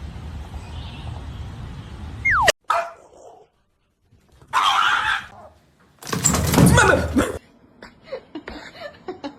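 A pet animal calling in two short bursts, the louder one lasting about a second and a half, after a short falling whistle-like tone that cuts off abruptly.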